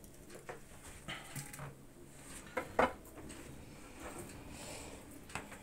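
A few scattered knocks and clicks of kitchen things being handled on a wooden cutting board and table, the loudest a quick pair about three seconds in.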